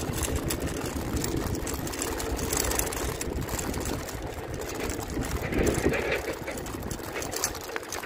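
Ebike riding along a compacted gravel road: tyres crunching on the gravel and wind buffeting the microphone, with a steady hum from the electric motor.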